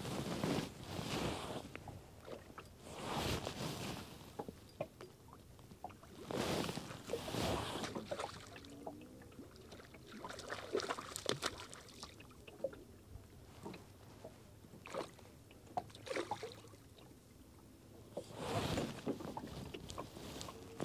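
Water lapping and slapping against the hull of a small open boat, in swells every few seconds, with faint scattered clicks between.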